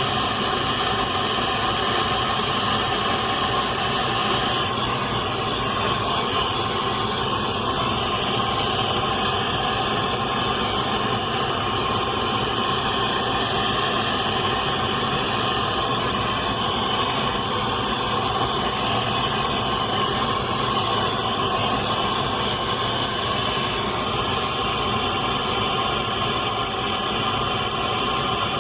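Radio static: a steady, unchanging hiss.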